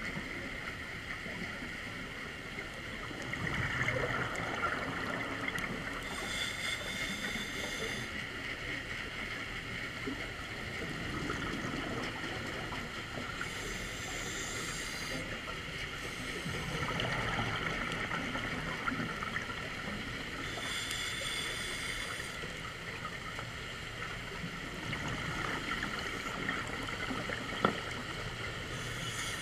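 Scuba diver breathing on a regulator, heard underwater: a burst of bubbling exhaust about every seven seconds over a steady watery hiss. There is one sharp click near the end.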